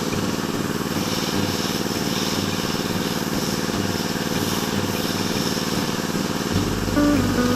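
Small engine running steadily with a fast, even pulse. Near the end a deeper hum and a few short tones join in.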